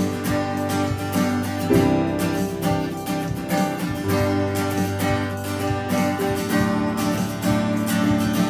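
Acoustic guitar strummed in a steady rhythm, moving to a new chord every couple of seconds, with no voice: an instrumental passage of a worship song.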